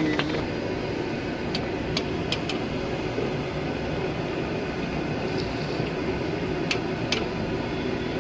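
Sliced onions deep-frying in hot oil in a large iron karahi, browning for a gravy base: a steady sizzle over a low rumble, with several sharp metallic clicks as a long perforated skimmer scrapes and taps the pan.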